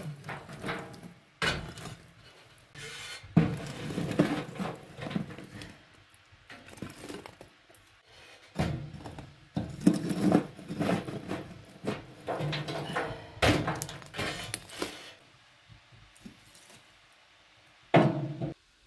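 Burning coals being raked and scraped out of a sheet-metal stove's firebox with a wooden-handled poker. The sound comes in irregular bouts of scraping, knocking and metallic clinks, with pauses between them and a short last bout near the end.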